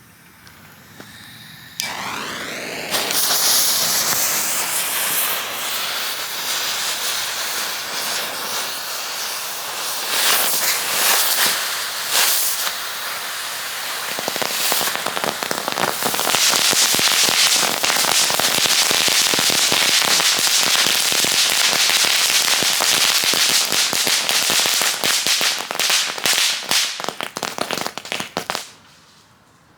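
Six fused novelty firework tanks going off together. The sound starts suddenly about two seconds in, then runs as dense crackling and popping for over twenty seconds and stops abruptly near the end.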